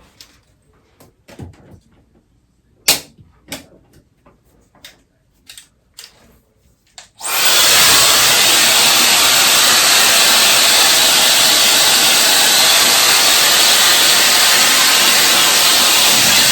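A few scattered clicks and knocks, then about seven seconds in a compact folding hair dryer switches on and runs with a loud, steady rush of air on its highest setting.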